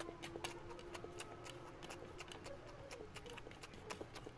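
Close-up eating sounds: fingers squishing and mixing oily rice and mutton fat curry on a plate, and wet mouth smacks while chewing, as many quick, irregular clicks.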